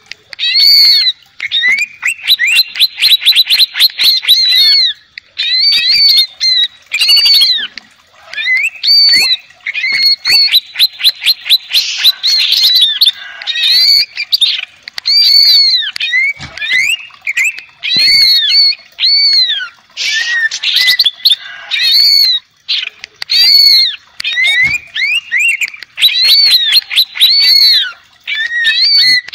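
Male cucak ijo (green leafbird) in full song: loud, varied phrases of sweeping whistled notes that rise and fall, mixed with fast runs of rapidly repeated chattering notes. The phrases come in bursts of one to two seconds with short pauses between them.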